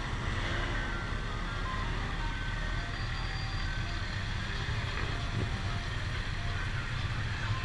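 A 1974 Honda XL250's single-cylinder engine runs at low speed in slow traffic under a steady rumble of engine and wind. Over it plays a simple tune of single high notes, one after another, like an ice-cream-truck chime.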